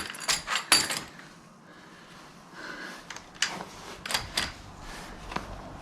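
Sharp metal clicks and clacks from handling hydraulic quick-connect couplers and their hose fittings: several in quick succession at the start, then a pause, then a few more scattered clicks.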